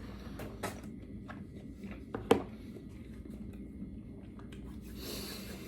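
Quiet handling noises from food containers being moved and opened: scattered light clicks and taps, one sharper click about two seconds in, and a brief rustle near the end.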